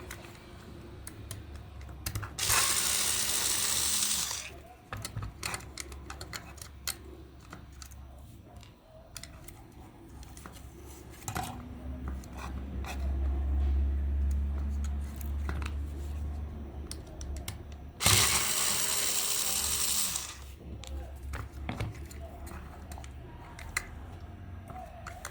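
Two loud bursts of hiss, each about two seconds long, a few seconds in and again about two-thirds of the way through, like a spray or a jet of air. Between them come scattered clicks and knocks of small parts being handled, and a low hum.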